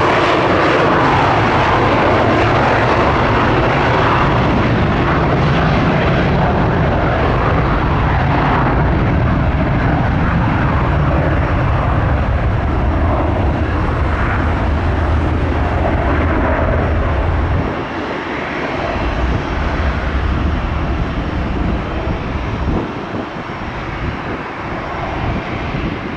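McDonnell Douglas MD-88's twin rear-mounted Pratt & Whitney JT8D turbofans at takeoff power: a loud, steady jet roar with a heavy low rumble through the takeoff roll and rotation. About two-thirds of the way through the deep rumble falls away and the roar turns quieter and uneven as the jet climbs out.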